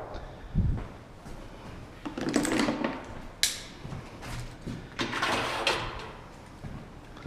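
Workpiece and tools being handled on a workbench: a low thud about half a second in, then rubbing and sliding noises with a sharp click about three and a half seconds in. No saw is running.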